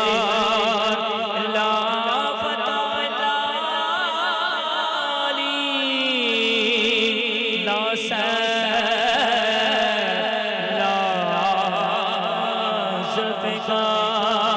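Male naat reciter singing long, drawn-out notes into a microphone, his voice wavering in a wide vibrato with slow slides in pitch.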